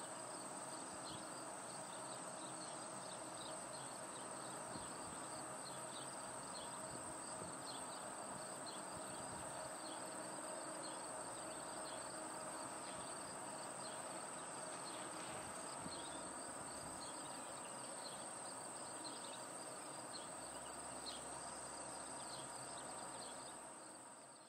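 Outdoor summer ambience: a steady high insect drone with many short chirps over a faint low hum and background haze, fading out near the end.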